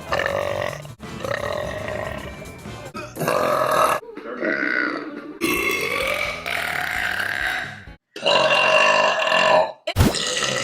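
Women burping: a run of about five long, drawn-out burps, one after another with abrupt cuts between them. One burp, about four seconds in, bends down and then back up in pitch.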